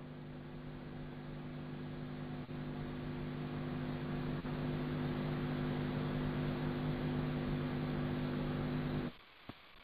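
Electrical mains hum on the audio line, a steady buzz with several evenly spaced tones that slowly grows louder and then cuts off suddenly about nine seconds in.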